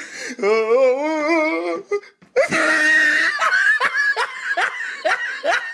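A person's high-pitched laughter: a long wavering laugh, then a loud shriek about two seconds in, then a string of short rising laughs, roughly two or three a second.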